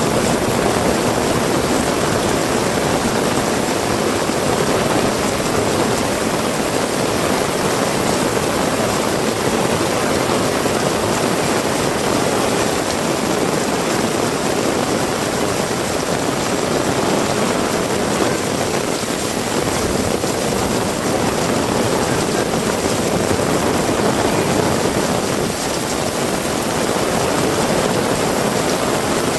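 Heavy rain falling in a dense, steady hiss, even throughout.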